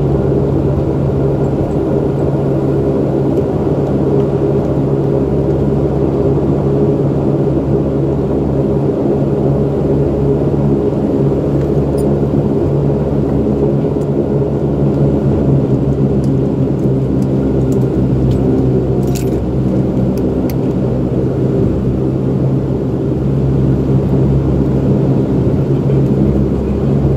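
Saab 340's General Electric CT7 turboprop engines and propellers heard from inside the cabin: a loud, steady drone with a low propeller hum as the aircraft taxis after landing.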